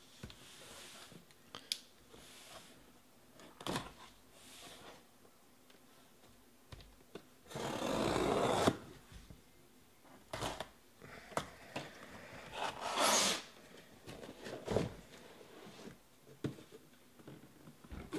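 A sealed cardboard shipping case being cut open and unpacked: a cutter slitting the packing tape, the cardboard scraping and rustling, with scattered knocks as boxes are handled. The loudest is a dense scraping stretch of about a second near the middle, with a shorter one a few seconds later.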